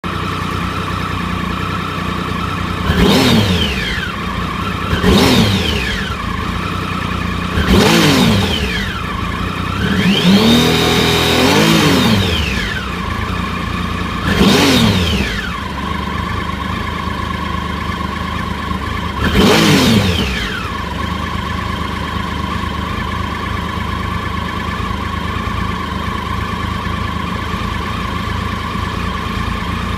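Triumph Sprint ST 1050's three-cylinder engine idling and blipped: five quick revs and one rev held for about two seconds, each falling straight back to idle, then a steady idle through the second half. The owner is after the cause of a hiccup at low revs.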